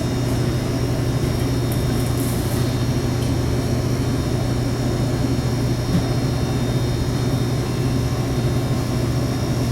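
Steady low drone of running rooftop condensing-unit machinery, with faint steady high whines above it.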